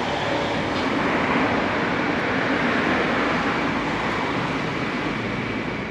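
Steady hum of road traffic, an even wash of noise with no distinct events.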